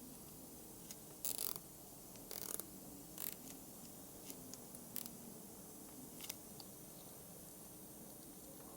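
Scattered short metallic clicks and scrapes of hand tools working on a car's CV joint boot and clip, a few seconds apart, the loudest about a second and a half in.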